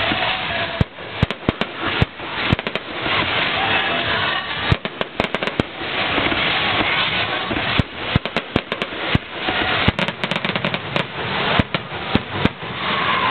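Aerial fireworks display: shells bursting in a rapid, irregular series of sharp bangs, many in quick clusters of several reports, over a continuous noisy background.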